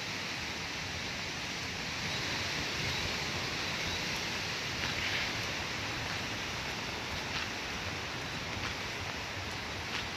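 Steady rushing noise of wind and rain as a hurricane approaches, with a few faint ticks.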